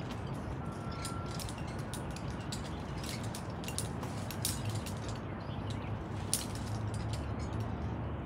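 Scattered light metallic clicks and clinks of climbing gear, such as carabiners and a belay device handling the rope, over a steady low background. A brief steady whistle sounds about a second in.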